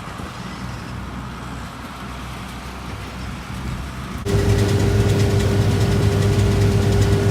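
Combine harvester running in a cornfield: a steady engine hum that about four seconds in becomes abruptly louder, with a deep hum and a steady higher-pitched whine.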